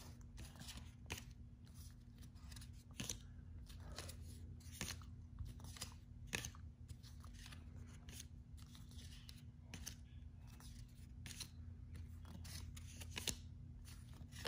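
Paper trading cards being flipped and slid over one another by hand: irregular soft snaps and swishes of card stock, about one or two a second, over a faint low hum.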